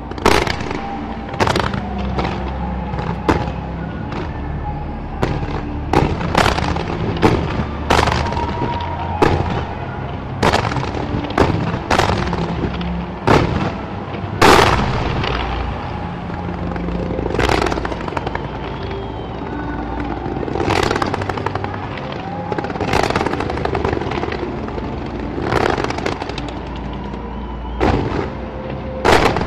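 Fireworks display: a long run of sharp bangs from bursting aerial shells, irregular and coming thick and fast in the first half, with the loudest bang about halfway through and fewer bangs after.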